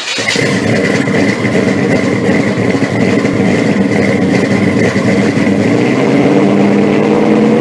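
A car engine running steadily, with a steady high-pitched whine above it.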